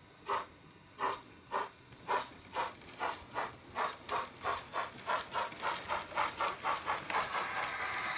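Sound-decoder steam exhaust of a Bachmann OO-gauge GWR Dukedog (Earl class) 4-4-0 model locomotive, chuffing through its small onboard speaker as it gathers speed. The chuffs quicken steadily from about one every half second to four or five a second, then run together into a continuous hiss near the end.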